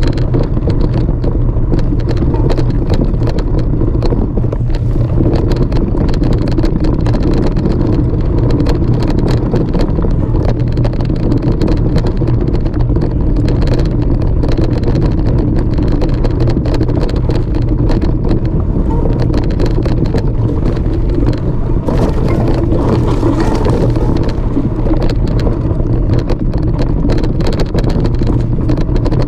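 Loud, steady rumble of wind and movement on a GoPro's body-worn microphone as it moves along a rocky trail, with many short knocks throughout.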